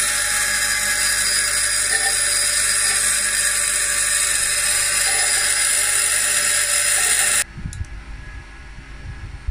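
Pinnacle bench grinder running with a steel baler knotter part pressed against its wheel: a steady grinding hiss over the motor's hum, which cuts off suddenly about seven seconds in. Metal is being ground off the part to chamfer it so that the knotter's beak will close.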